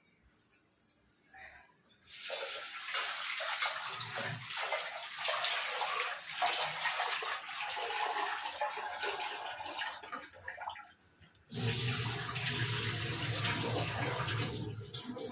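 Water running and splashing in two spells: the first starts about two seconds in and lasts roughly nine seconds, and the second follows after a brief stop with a deeper, heavier splash.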